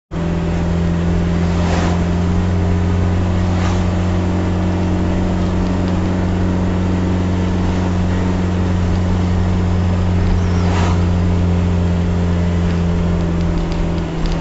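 Pickup truck's engine and road noise heard from inside the cab while cruising at a steady speed: a constant low drone with three brief whooshes, likely passing traffic.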